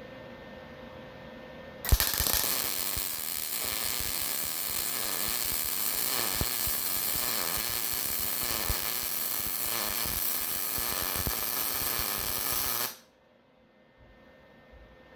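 Electric welding arc crackling steadily while a bead is run on smoker steel, striking with a sharp crack about two seconds in and stopping abruptly about eleven seconds later.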